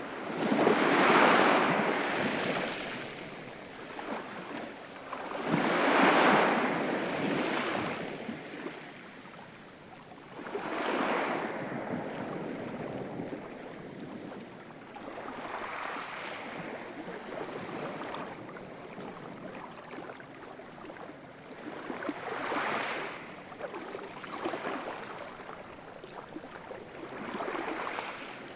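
Sea waves breaking, each one a rush of surf that swells and fades, about every five seconds. The first two breakers are the loudest.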